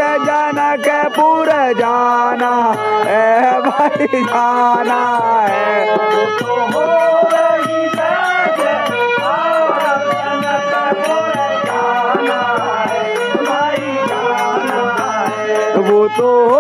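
Men singing a devotional kirtan song with a dholak drum keeping a steady beat, and a high tick repeating in time.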